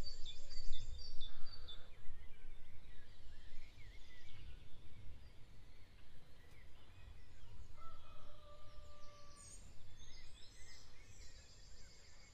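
Dawn chorus: many birds chirping and trilling over a low rumble of background noise, with a couple of longer whistled notes about halfway through.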